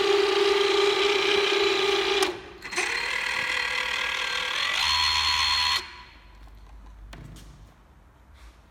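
Electric thrusters of a Sibiu Nano underwater ROV spinning in open air on a bench test, a steady high whine. It stops about two seconds in, starts again a moment later at a slightly different pitch, and cuts off about six seconds in.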